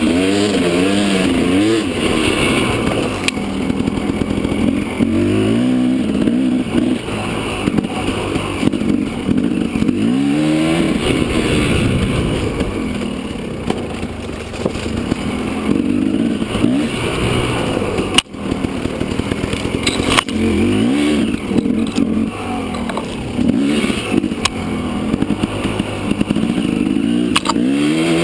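Dirt bike engine revving up and down repeatedly while riding a rough trail.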